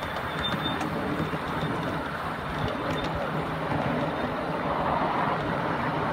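7¼-inch gauge miniature steam train, hauled by a Britannia locomotive, running along its track as heard from a passenger car: a steady running noise with a few faint clicks.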